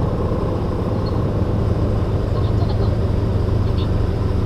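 Steady low rumble of a double-decker sleeper bus running, engine and road noise heard from inside the cabin, with a few faint light ticks.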